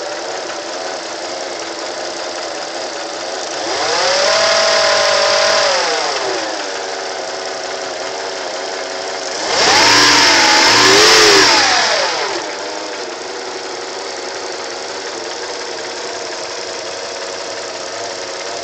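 1988 Acura Legend V6 engine idling, revved twice: once briefly about four seconds in, then again harder with a double rise about ten seconds in, falling back to a steady idle each time. It runs with a noise that the owner calls weird and cannot place.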